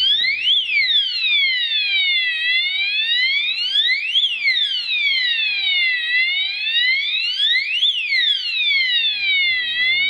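Addressable fire alarm sounder sounding a loud electronic siren that rises and falls slowly, about one full sweep every three and a half seconds. The panel's Resound command has set the sounders going again in fire alarm mode.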